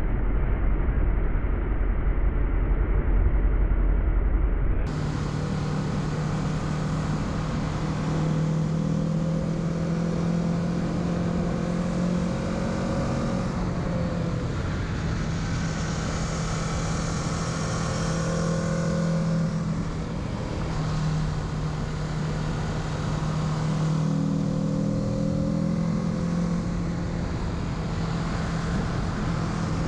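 Kawasaki Z650 parallel-twin engine running under way, with wind noise throughout. A heavy, muffled low rumble covers the first five seconds or so. After that the engine note comes through steadier and climbs in pitch a few times as the bike accelerates.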